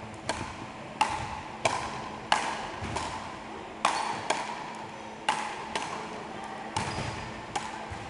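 Wooden frescobol paddles hitting a rubber ball back and forth in a rally: sharp knocks roughly every half second to a second, echoing in a large sports hall.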